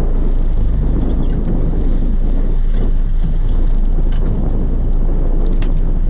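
Steady wind buffeting the microphone on a fishing boat's bow at sea, a dense low rumble throughout. Four faint clicks come about a second and a half apart.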